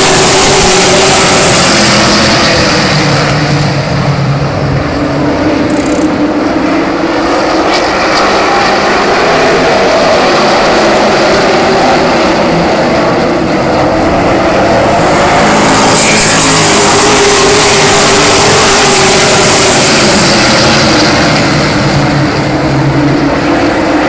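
A pack of super trucks racing on a short oval, their engines running hard at full racing speed. The sound is loud and bright as the field passes close, dulls as it goes round the far side, then swells again about sixteen seconds in as the pack comes back by.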